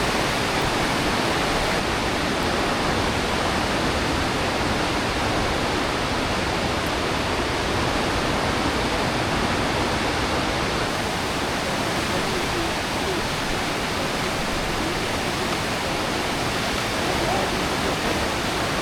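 Aare river water rushing through a narrow rock gorge, a steady even roar of white water.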